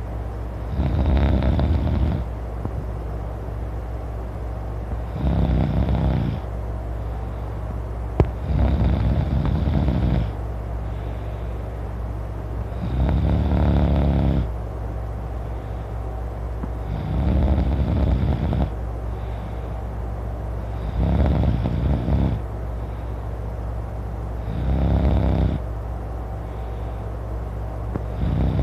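A man snoring loudly in his sleep, one snore about every four seconds, each lasting about a second.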